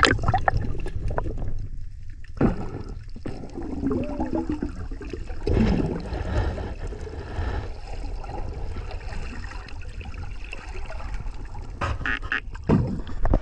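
Muffled underwater sound from an action camera held under the surface: water sloshing and gurgling, with a steady low rumble and a few brief louder swells.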